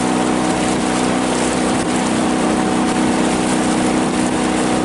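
Outboard motor running steadily under way, a constant engine hum over a rushing hiss.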